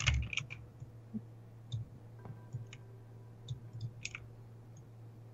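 Faint, scattered clicks at a computer, a handful of them spread over a few seconds, over a steady low hum.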